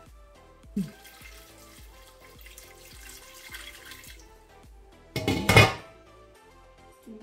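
Water pouring from a jug into a stainless steel pot for about three seconds, then a loud short clatter as a glass lid is set on the pot, over background music. A brief knock against the pot comes about a second in.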